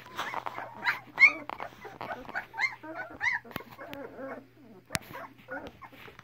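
Young Great Pyrenees–Newfoundland cross puppies whimpering and squeaking, a dense run of short high-pitched cries that rise and fall and overlap, loudest about a second in. Two sharp clicks come in the second half.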